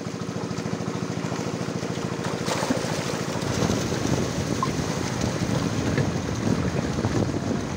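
Fish thrashing and splashing in shallow water crowded inside a seine net, with a small engine running steadily underneath.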